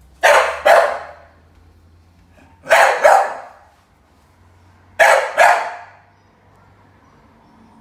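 A Staffordshire bull terrier barking in three pairs of loud barks, about two and a half seconds apart: an overexcited dog barking at a visitor.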